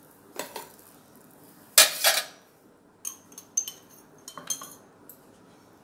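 Metal kitchen utensils clattering and clinking against each other and the cookware: one loud clatter about two seconds in, then a run of lighter, ringing clinks.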